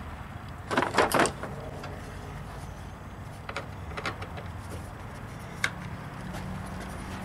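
Hand tools clattering together as they are picked up from a tray of screwdrivers, a brief burst about a second in, followed by a few light clicks and taps of hand work in a truck's engine bay.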